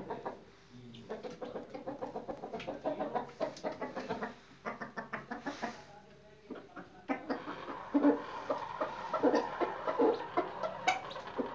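Rooster giving a long run of rapid, rhythmic clucking notes. It pauses about halfway, then resumes louder and denser. It is an unusual, eerie call that the owner finds frightening and wonders is an alarm.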